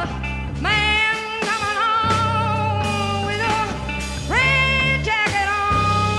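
Psychedelic rock music: long held notes that slide up into pitch over a steady low backing.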